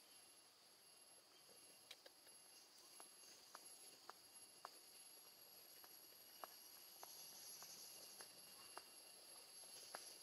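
Near silence: a faint, steady, high-pitched insect drone, as from crickets or cicadas, with soft scattered clicks every second or so.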